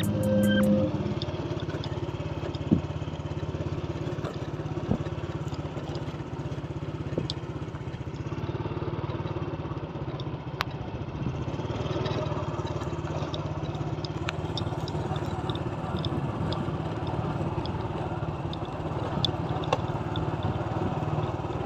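A small motorcycle engine running steadily as it travels along a rough dirt road, with wind rumble on the microphone. Background music fades out about a second in.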